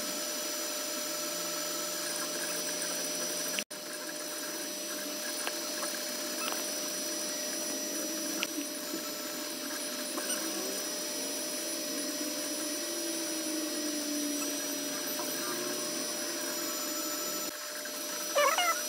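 Creality Ender 3 FDM 3D printer running a print: a steady whir from its cooling fans with the stepper motors whining and sliding in pitch as the print head and bed move. Near the end, louder high, wavering chirping squeaks cut in.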